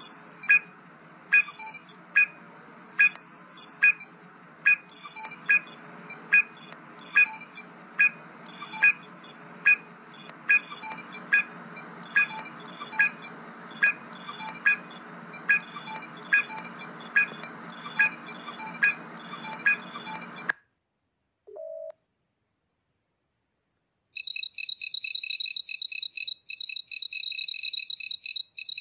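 Star Trek LCARS-style computer sound effects: a low steady hum with a short electronic beep repeating a little more than once a second, stopping about twenty seconds in. After a brief low blip and a pause, a rapid warbling electronic trill starts near the end.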